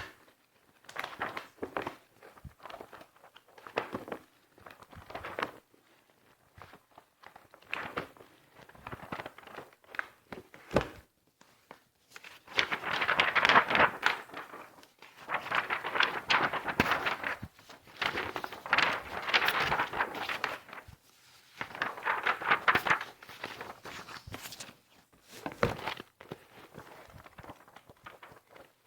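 Sheets of paper rustling and crinkling as they are handled, in a series of bursts with short pauses between. The first few are short; about halfway through come longer, louder stretches of crinkling.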